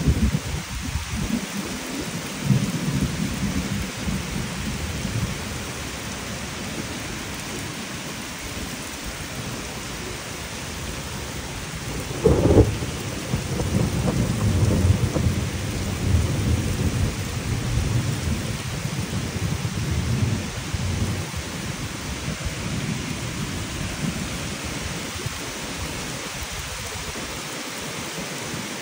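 Thunderstorm: steady rain falling, with low thunder rumbling in the first few seconds. About twelve seconds in, a sharp, loud thunderclap is followed by several seconds of low rumbling.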